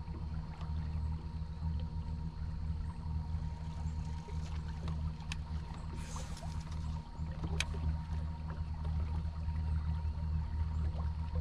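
Bass boat's electric trolling motor running steadily, a low hum with a thin steady whine over it, with a couple of faint sharp clicks in the middle.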